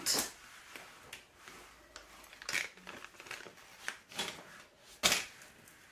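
Faint crinkling and rustling of packaging, broken by a few short crackles, the loudest about five seconds in.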